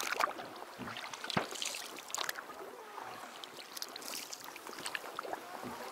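Oars of an inflatable boat being rowed, with splashing and water trickling off the blades, scattered small clicks and one sharp knock about a second and a half in.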